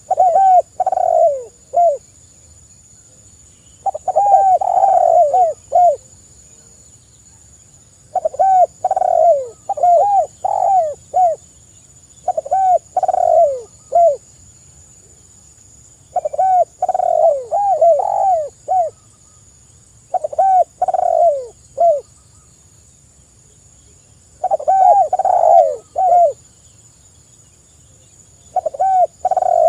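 Spotted dove cooing: phrases of several low, downward-sliding coos, each phrase lasting about two seconds, repeated after pauses of a couple of seconds.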